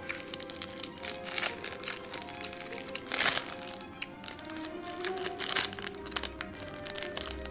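Background music with steady held notes, overlaid by short noisy rustles or crackles, the loudest about three seconds in and again about five and a half seconds in.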